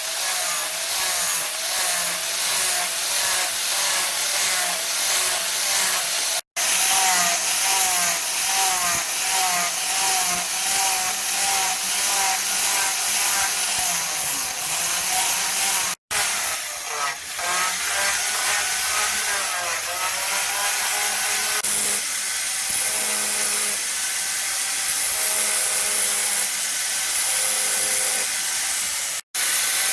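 A tool working wood in repeated rhythmic strokes, with a wavering scraping pitch. The sound breaks off abruptly three times: about six seconds in, about halfway, and near the end.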